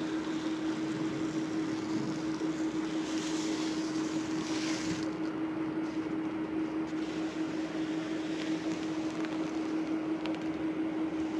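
Small polystyrene foam beads pouring from a plastic bag into a glass bowl with a soft rustling hiss, the bag crinkling more loudly a few seconds in. A steady low hum runs underneath throughout.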